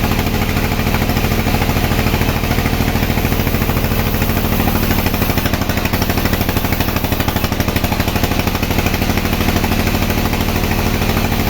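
Sawmill machinery running with a steady, low engine-like drone and a fast, even pulsing.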